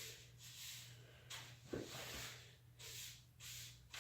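Faint soft hissing strokes, one every half second or so, over a steady low hum.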